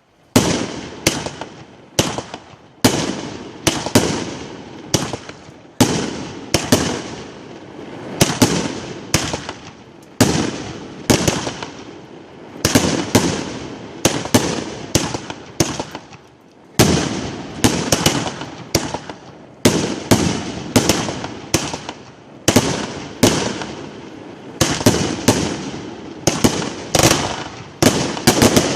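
Fireworks going off in a long, irregular barrage of sharp bangs, one to three a second, each trailing off in an echoing decay, with a brief lull about halfway through.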